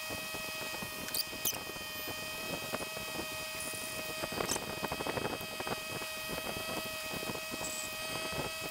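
Small hand vacuum pump being worked to suck power steering fluid out of the reservoir through clear tubing: a run of small squeaks and clicks from the pump strokes, busiest midway. A faint steady whine runs behind it.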